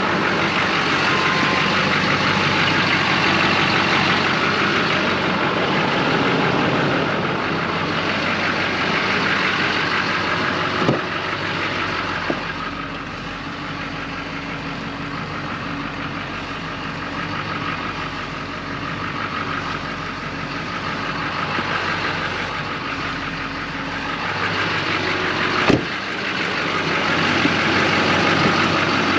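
Duramax diesel pickup engine running steadily, with a short sharp knock about eleven seconds in and another near the end.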